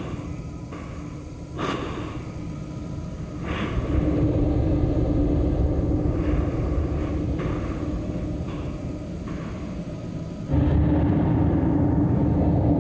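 Low rumbling drone with a steady hum running through it, an ambient sound-art soundscape. It swells louder about four seconds in and steps up suddenly near the end, with two brief hissing swells in the first few seconds.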